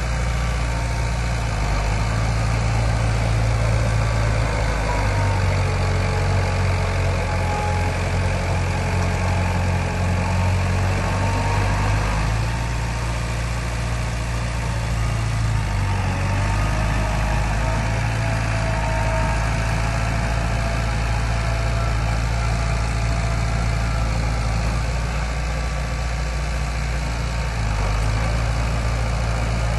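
Heavy-equipment diesel engine running steadily at work, its note shifting slightly every few seconds, with a faint wavering whine above it.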